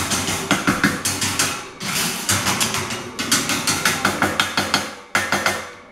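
A loud, rapid clatter of sharp clacks, several a second, coming in bursts with short breaks, made on purpose to startle the puppies.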